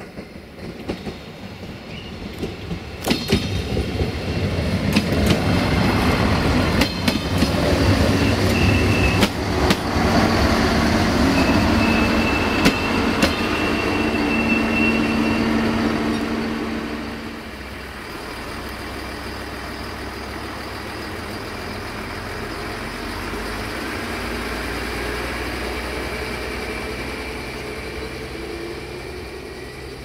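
Siemens Desiro VT642 diesel multiple unit passing: its diesel engine runs with a low drone while the wheels click in clusters over the rail joints and points, and a thin high wheel squeal rings out twice in the middle. After about seventeen seconds it gets quieter as the train pulls away.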